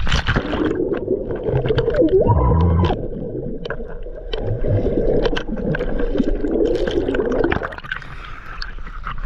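Muffled underwater sound of a submerged camera: bubbling and gurgling water with scattered clicks, and a louder muffled tone briefly about two seconds in. Near the end the camera breaks the surface and the sound opens up into water sloshing in open air.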